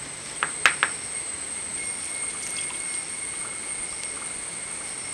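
Three quick clicks of a metal spoon against a stone grinding slab as turmeric powder is tipped on, followed by a steady hiss with a thin high tone.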